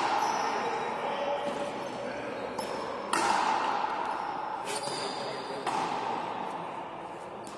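Frontenis rally: the rubber ball cracks off rackets and the front wall a few times, each hit ringing on in a long hall echo.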